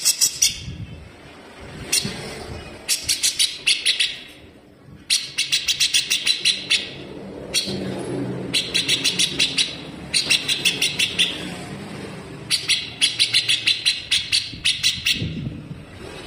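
Cucak jenggot (grey-cheeked bulbul) singing fast, dense chattering phrases of rapidly repeated harsh, sharp notes, each burst about a second long and repeated with short pauses. A faint low rumble runs underneath.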